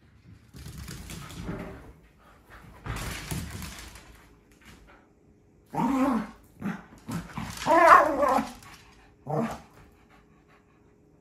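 Scottish terriers playing rough: a scuffle in the first few seconds, then a string of barks and growl-barks from about six seconds in, loudest around eight seconds, with one last bark about a second later.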